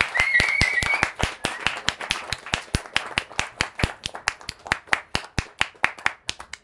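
A small audience clapping, dense at first, then thinning out to scattered claps and dying away. A short high whistle is heard during the first second.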